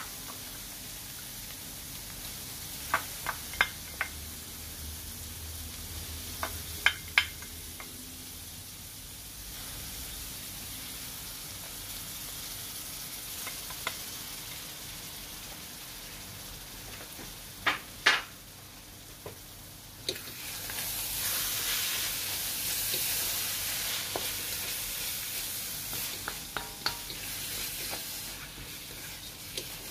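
Minced pork sizzling in oil in a wok, with a few sharp taps of a utensil against the pan as chopped bell peppers are added. About two-thirds of the way through the sizzle grows louder as a spatula stirs the pork and peppers together.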